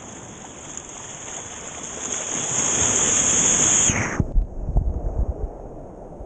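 Small sea wave breaking and its white water rushing in, the hiss building for a couple of seconds, then turning suddenly muffled about four seconds in, with low, irregular thuds as the camera is swamped in the foam.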